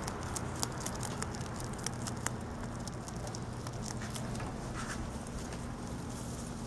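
Rabbit chewing a lemongrass stalk: quick crisp clicks of the teeth cutting through the grass, thinning out about halfway through, over a steady low hum.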